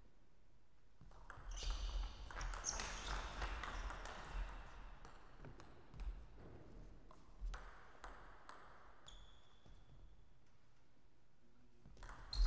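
A table tennis rally: a celluloid ball clicking off the rackets and the table in quick succession for a few seconds, then a few single, spaced-out hits.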